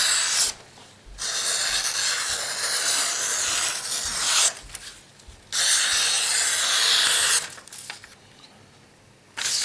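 A knife blade drawn slowly through or along a material in long rasping strokes, testing the freshly stropped 3V steel edge. There are two long strokes in the middle, with shorter ones at the start and near the end.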